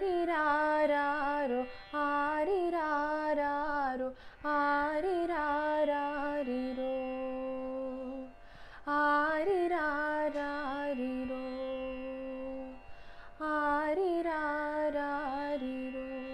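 A woman singing solo in the style of a Tamil film lullaby, with no words recognised. She sings about five drawn-out phrases with short breaths between them; each opens with a quick Carnatic-style ornamented turn and settles into a long held note.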